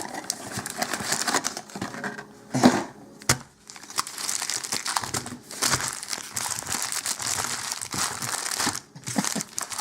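Foil booster-pack wrappers crinkling as the packs are handled, with a couple of sharper knocks a few seconds in.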